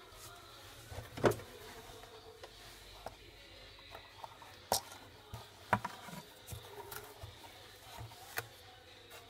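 Scattered light clicks and taps from handling an eyeglass frame and its lenses, with a sharp click about a second in and a few more through the rest.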